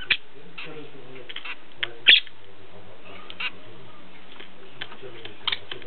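Zebra finches giving short, sparse calls, a few single notes spread over several seconds, the loudest about two seconds in.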